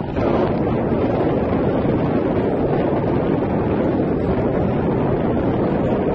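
Steady, loud rush of wind on the microphone, with no pitch or rhythm in it.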